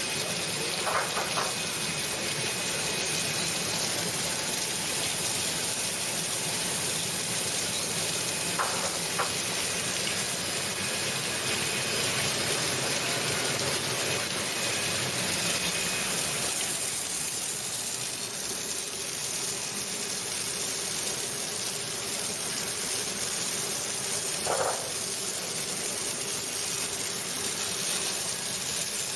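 Commercial produce washing machine running, with a steady hiss and gush of churning, spraying water.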